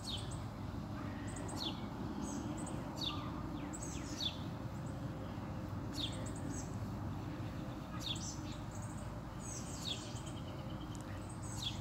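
Birds chirping: short high calls that sweep downward, repeated every second or two, over a steady low background noise.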